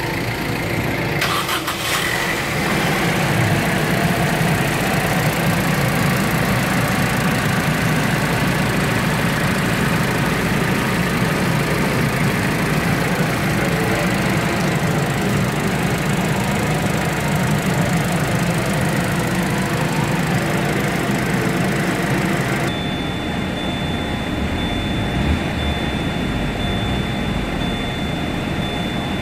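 Vauxhall Corsa's 1.2-litre 16-valve four-cylinder Ecotec petrol engine (A12XER) idling steadily with the bonnet open. Near the end it is heard from inside the cabin, duller and with less hiss.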